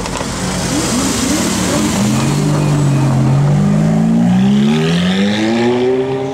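A supercar engine accelerating hard. A few quick rev rises come about a second in, then the engine pitch dips and climbs steadily as it pulls, peaking near the end and beginning to fall away.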